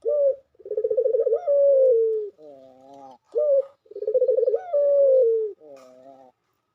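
A dove cooing in two repeated phrases. Each phrase is a short rising note, then a rolling, pulsed coo that runs into a long falling coo, followed by a softer, lower note.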